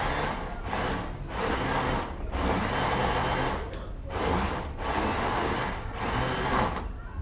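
Electric countertop blender chopping fresh peppers with a little water, pulsed stop-and-start: the motor runs in stretches broken by short pauses about two, four and seven seconds in. The pulsing keeps the pepper from blending too smooth.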